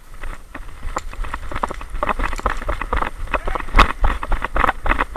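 Running footsteps crunching quickly and irregularly through dry leaf litter and twigs on a woodland floor, over a low rumble of wind and movement on the body-worn microphone. A louder crack comes just before four seconds in.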